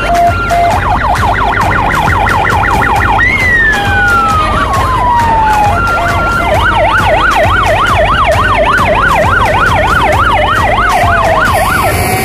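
Sirens of fire engines driving past. A two-tone hi-lo gives way about a second in to a fast yelp, then a long falling wail just after three seconds. From about halfway a slower rising-and-falling warble runs, overlapped by other sirens.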